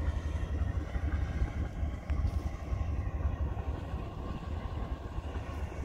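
An RGE-20 diesel-electric locomotive standing and idling at a distance: a steady low rumble with a faint hum of higher tones above it.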